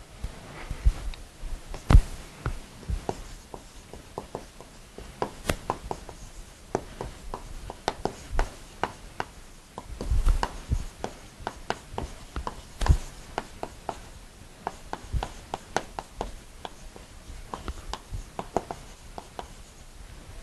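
Chalk writing on a blackboard: an irregular run of quick taps and scratches as words are written, with a few louder knocks.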